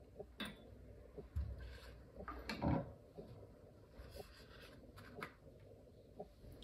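Hands handling small plastic parts and tools on a stone worktop: scattered light clicks and taps, with one louder knock about two and a half seconds in.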